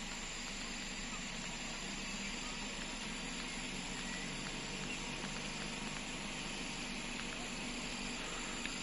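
Steady outdoor ambience over rice paddies: an even hiss with a low steady hum underneath and faint short chirps.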